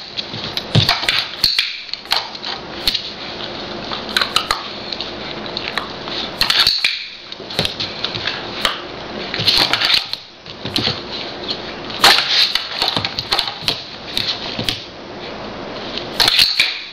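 Irregular sharp clicks, taps and rustling from a clicker-training session on a light switch: a standard poodle puppy pawing at the wall switch, with the plastic clicks of the switch and the training clicker.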